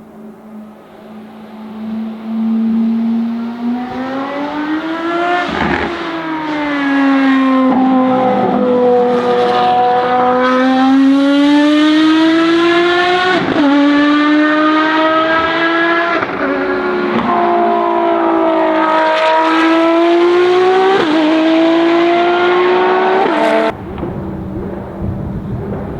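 Ferrari FXX Evo's V12 engine at racing speed on track, growing louder over the first few seconds, then rising and falling in pitch with several sharp gear changes. The sound drops off suddenly near the end.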